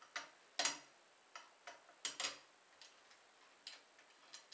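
Scattered light metallic clicks and knocks as the tang screw is started by hand into a muzzle-loading gun and the gun is handled. The loudest knock comes just over half a second in, with two more close together around two seconds in, over a faint steady high whine.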